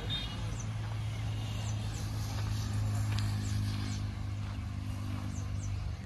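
Steady low machine hum at one constant pitch, growing louder in the middle and stopping near the end, with a few faint bird chirps above it.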